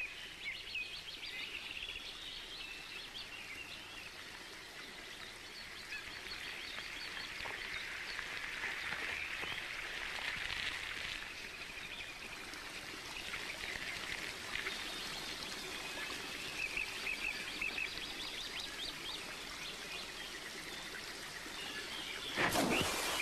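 Wild birds chirping and calling over a steady wash of lapping water, with a short, louder burst of noise near the end.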